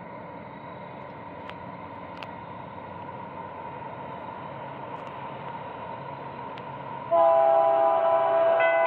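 Approaching freight train, a faint steady rumble and tone slowly growing louder, then about seven seconds in the lead Union Pacific GE AC4400CW locomotive's air horn sounds suddenly and loudly as a multi-note chord.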